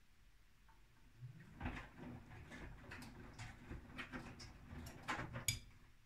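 Gorenje front-loading washing machine turning its drum in a wash tumble. About a second in, the motor hum starts, with irregular sloshing of water and wet laundry dropping inside the drum. The drum stops shortly before the end.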